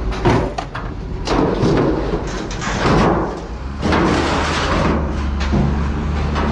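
Old steel car hoods and body panels being dragged across a pickup truck bed and pulled out by hand: repeated clanks, knocks and scraping of thin sheet metal. A low steady hum joins about four seconds in.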